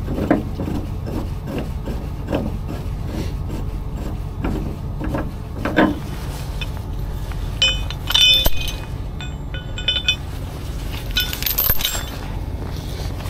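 Metal clinking and jangling in several short bouts, mostly in the second half, as tow rigging (chains and hooks) is unhooked and handled, over a truck engine idling steadily.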